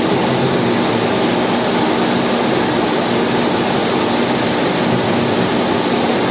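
Steady, loud rushing background noise with a faint low hum, unchanging throughout.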